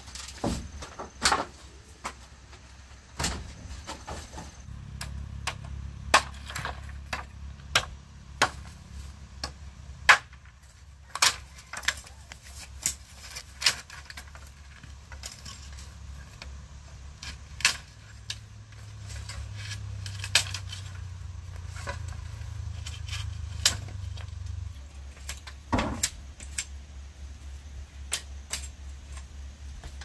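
Irregular sharp knocks and clacks from hand building work, a couple of dozen spread over the stretch, over a low steady hum.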